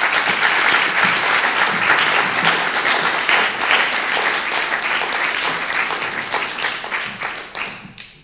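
An audience applauding, a dense patter of many hands that fades away in the last second or so.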